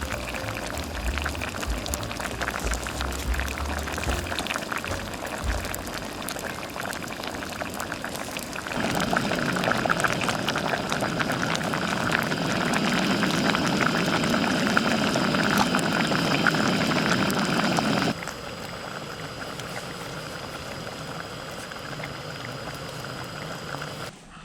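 Pork-bone hangover soup boiling in a pot, a steady bubbling hiss that grows louder for about nine seconds in the middle, then drops back.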